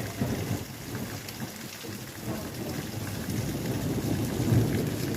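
Thunder rumbling low and building louder over the hiss of heavy rain.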